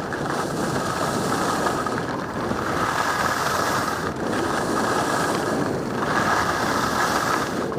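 Steady rushing hiss of skis sliding and turning over snow on a downhill run, mixed with wind on the microphone, swelling and easing slightly with the turns.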